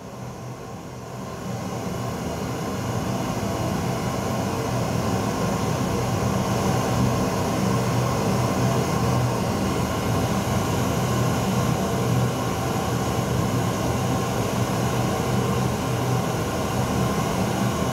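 Pink noise test signal played through a DAS Action 515A 15-inch two-way powered loudspeaker. It is a steady rushing hiss that swells over the first couple of seconds as the volume is turned up, then holds. The signal is used to measure the speaker's frequency response.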